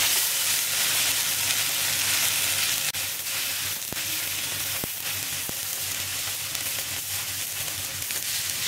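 Oil sizzling steadily on a hot iron tawa as mashed colocasia (arbi) patties are laid down one by one to shallow-fry. A few short clicks are heard partway through.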